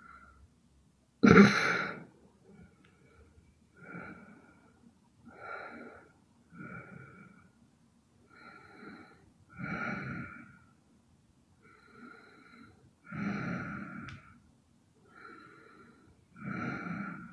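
A sleeping young woman snoring: a run of wheezy, noisy breaths, roughly one every one to two seconds, the loudest about a second in.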